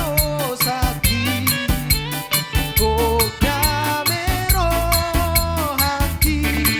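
Instrumental band music with a steady, quick drum beat, a bass line and a gliding lead melody.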